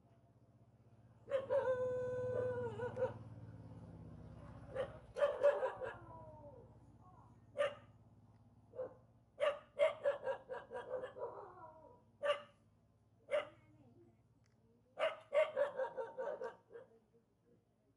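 A village dog barking at people it is unhappy to meet. About a second in comes one long held call of nearly two seconds, then single sharp barks and quick runs of barks, the last run near the end.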